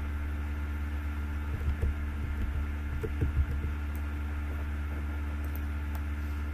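Steady low electrical hum with a light hiss, the recording's background noise, with a few soft low bumps about two and three seconds in.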